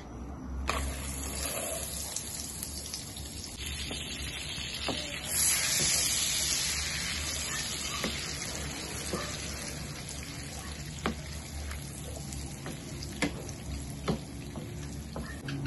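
Butter melting and sizzling in a nonstick frying pan, the sizzle growing louder about five seconds in. A few light taps of a wooden spatula on the pan stand out near the end.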